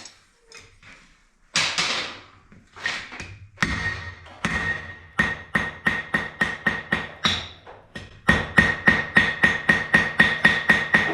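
Hand hammer striking hot steel bar stock on an anvil to forge-weld a fluxed seam, a steady run of blows about four a second with a ringing anvil tone, getting louder about eight seconds in.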